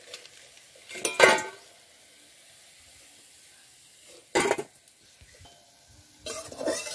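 A metal spatula scraping and clinking in a kadai of hot oil and against a steel bowl as fried fritters are lifted out: three bursts of clatter, the loudest about a second in, another a little past the middle, and a last cluster near the end. Between them the oil sizzles faintly.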